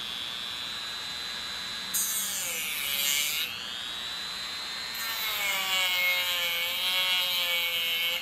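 Dremel rotary tool running with a high whine while scoring the plastic bottle shrunk over a plaster buck. Twice, about two seconds in and again about five seconds in, the bit bites into the plastic: the whine drops in pitch under the load and a grinding hiss comes in.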